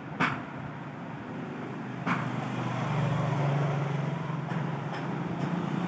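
A low, steady motor hum that grows louder from about two seconds in. A sharp click comes just after the start and another about two seconds in.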